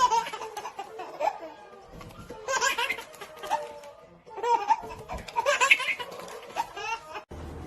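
A person laughing in several bursts.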